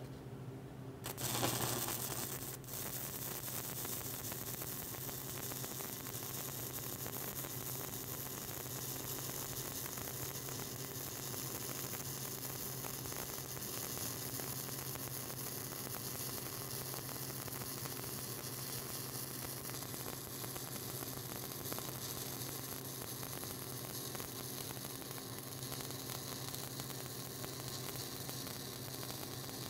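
Stick (shielded metal arc) welding with a 7018 rod: the arc strikes about a second in, then burns with a steady crackling sizzle as a stringer bead is run in the groove, over a steady low hum.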